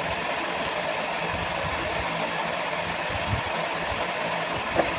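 Steady mechanical drone of a running machine: a low hum under an even hiss, unchanging throughout.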